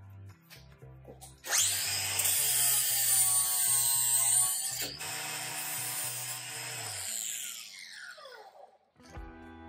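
Milwaukee M18 cordless angle grinder fitted with a flap disc, starting up about a second and a half in and sanding down the excess wooden axe wedge. It drops in level around five seconds, then spins down with a falling whine near the end, with background music underneath.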